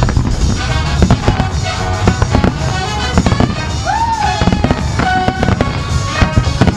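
A fireworks display: a rapid, irregular string of bangs and crackles from bursting shells and ground-fired comets, with music playing alongside.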